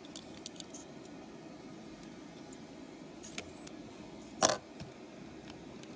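A few light plastic clicks of LEGO bricks being handled, with one louder click or knock about four and a half seconds in, over a faint low steady hum.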